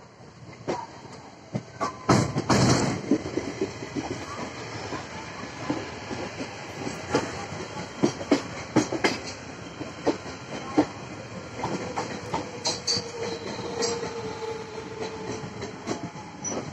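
Suburban electric multiple-unit train running, its wheels clattering over rail joints in an irregular run of knocks, with a loud rush of noise about two seconds in.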